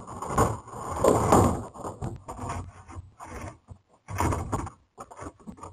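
Plastic wheeled trash and recycling bins being knocked, dragged and rattled by a bear rummaging in them, heard through a security camera's microphone. The knocking and scraping comes in uneven clumps and cuts off suddenly at the end.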